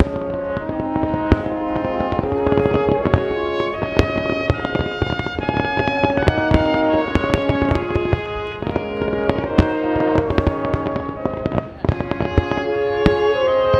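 Aerial fireworks bursting in quick succession with many sharp bangs, mixed with instrumental music playing long held notes.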